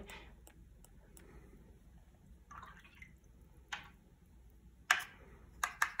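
Faint taps of a paintbrush flicking watercolour splatters onto wet paper: a soft brushy swish about two and a half seconds in, then a few quick sharp taps near the end.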